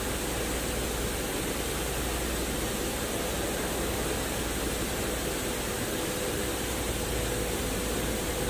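Steady rushing background noise of a workshop, with a faint steady hum and no distinct tool strikes or clicks.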